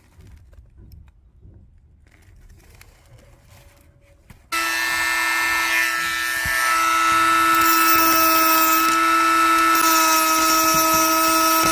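A small electric motor, like a power tool, runs at a steady speed with a constant whine for about eight seconds. It switches on abruptly about four and a half seconds in and cuts off suddenly near the end. Faint handling sounds come before it.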